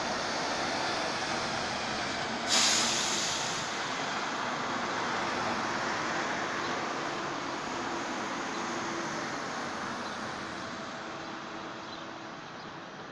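Articulated city bus driving off through a junction, its engine and tyres fading as it pulls away. About two and a half seconds in there is a sudden loud hiss of released compressed air lasting about a second, typical of a bus's air brakes.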